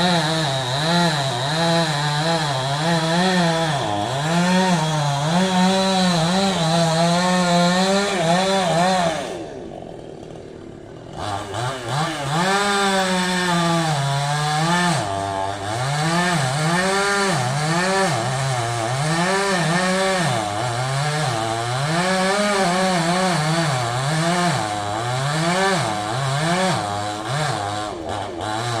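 Chainsaw cutting through a large tree trunk, its engine pitch rising and falling as the chain bites into the wood. About nine seconds in, the saw drops back to idle for a couple of seconds, then revs up and carries on cutting.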